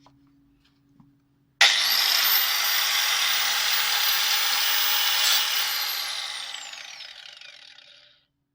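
Electric angle grinder switched on, its high whine climbing quickly to full speed. It runs steadily for about four seconds, then is switched off and winds down, the whine falling in pitch until it stops.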